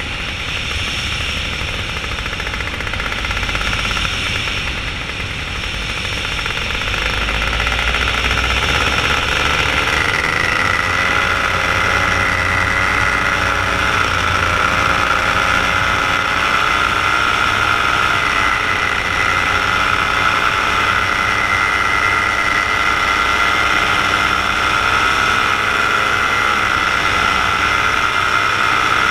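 Paramotor engine and propeller running steadily in flight. The engine note gets louder about a third of the way in and then holds a steady whine.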